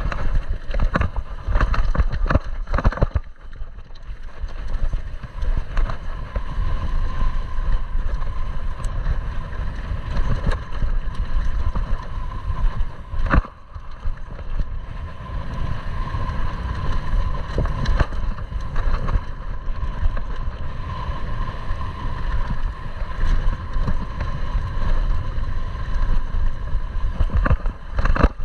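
YT downhill mountain bike ridden fast down a dirt forest trail: heavy wind rumble on the camera microphone and tyre noise, with frequent sharp knocks and rattles as the bike hits bumps and roots, one loud knock about halfway through. A steady high whirring tone runs under much of it.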